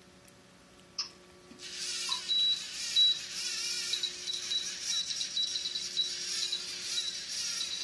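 LEGO Mindstorms robot's geared drive motors whirring as it drives along a line, starting about one and a half seconds in, with a high whine that flickers on and off. A single click comes about a second in.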